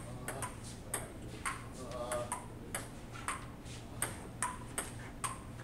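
Table tennis rally: a plastic ball clicking off paddles and the table, about two hits a second, over a low steady hum.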